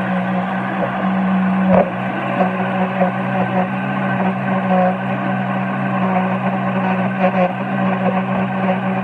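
Electric blender motor running steadily with a constant hum, whipping a jar of garlic sauce. A brief knock about two seconds in.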